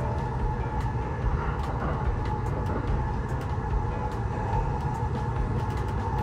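Running noise inside an E235-series electric train at speed: a steady low rumble of wheels on rail with a faint steady hum and scattered light clicks.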